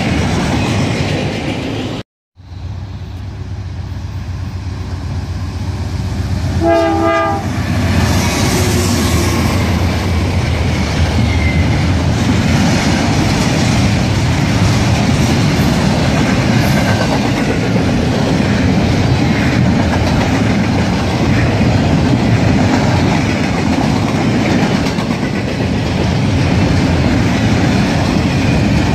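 Double-stack intermodal freight train rolling past: a steady rumble and clickety-clack of wheels on rail joints. About two seconds in the sound cuts out for a moment, and around seven seconds in a train horn sounds briefly.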